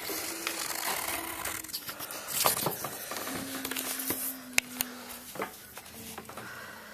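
Graphite pencil scratching and shading on paper, mixed with rustling handling noise from a hand-held camera, with a couple of sharp clicks about two-thirds of the way in.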